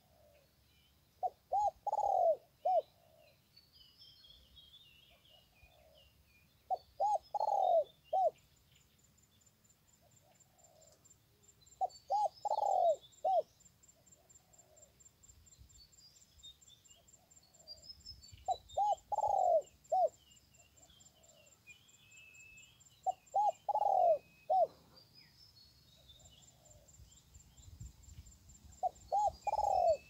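A dove cooing a repeated phrase six times, about every five to six seconds: two short notes, a longer swelling coo, then a short closing note. Small birds chirp faintly behind it, and a thin, high insect trill joins about eight seconds in.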